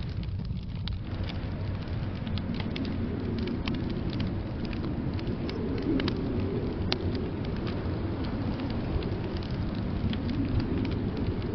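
Wood fire crackling with scattered sharp pops over a steady low rumble of blizzard wind. The wind swells about halfway through and again near the end.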